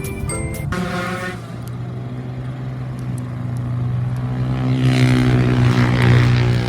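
A motor vehicle's engine running with a steady low hum, growing louder with a rush of noise around five to six seconds in, then easing. Background music ends about a second in.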